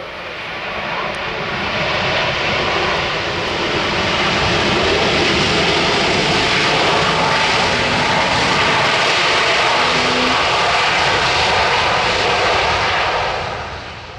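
Jet engines of an Azul Airbus A330 twin-jet airliner, a loud steady roar as it rolls along the runway. The roar builds over the first couple of seconds, holds, then fades out near the end.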